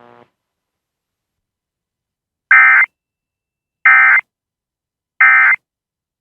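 Emergency Alert System end-of-message signal: three short, identical bursts of SAME digital data tones about 1.4 seconds apart, marking the end of the alert.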